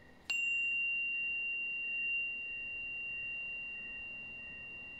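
A tuning fork is struck about a third of a second in, giving a short metallic strike. It then rings a single clear high tone that fades slowly.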